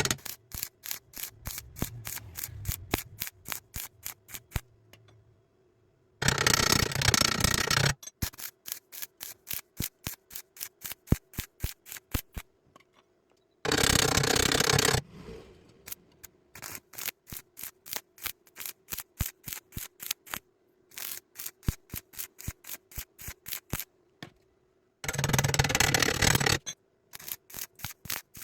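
Welding arc struck in short, regular bursts, about three a second, as when tacking across a wide gap, with three longer continuous runs of about a second and a half each.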